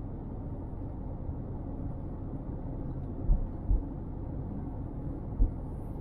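Steady low rumble of a car on the move, road and engine noise heard from a dash cam, with three short low thumps in the second half.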